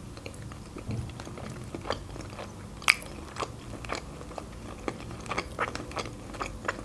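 A person chewing a mouthful of pasta shells in cream sauce: soft, wet, irregular mouth clicks and smacks, with one sharper click about three seconds in.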